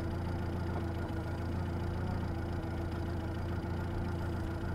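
A boat's motor running steadily: an even low rumble with a steady hum above it, unchanging throughout.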